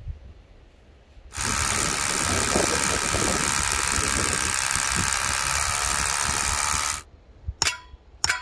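Electric drill running steadily for about five and a half seconds as it bores into a rough-sawn pine beam beside a metal post anchor, then stopping abruptly. Near the end, two sharp hammer strikes with a brief metallic ring.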